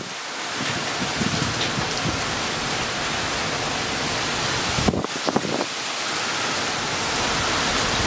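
Heavy typhoon rain pouring steadily, driven by strong wind. Brief low gusts buffet the microphone at the start and again about five seconds in.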